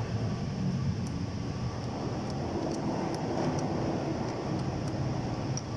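Steady low machine hum with a faint hiss above it, and a few light clicks and taps from hands and tools working on wiring in an engine bay.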